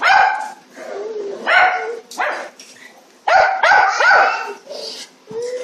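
Mastiff barking in short, pitched, yowling barks, about six of them, several rising and falling in pitch, with a quick run of three about three and a half seconds in.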